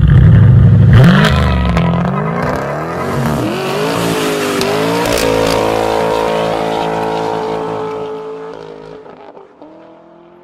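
Car engine revving: a deep rumble, then a rise in pitch that holds at high revs and fades out near the end.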